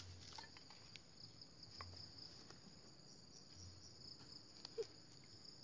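Faint, steady, high-pitched insect chirring with a quick pulsing, from crickets or similar insects. A few faint clicks, the sharpest near the end.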